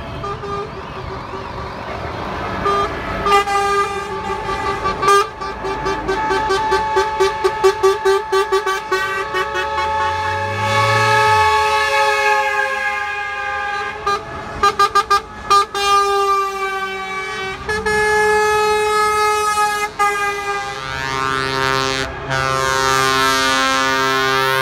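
A convoy of trucks passing and sounding their air horns: multi-tone horn chords held for several seconds and broken twice into runs of short toots, over truck engine noise.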